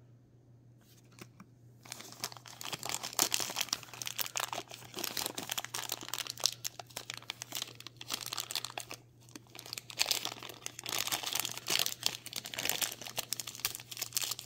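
Thin clear plastic bag crinkling and crackling as fingers pull it open around a small plastic toy figure, starting about two seconds in and going on in uneven spurts.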